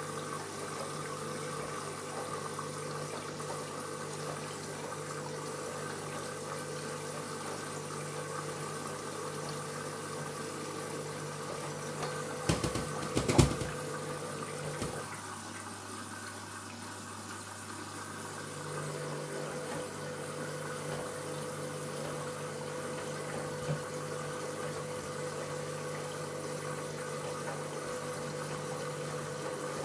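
Front-loading washing machine taking in water at the start of a wash cycle: water running in with a steady hum. About 12 to 15 seconds in there are a few loud knocks, and the hum drops away for a few seconds before starting again.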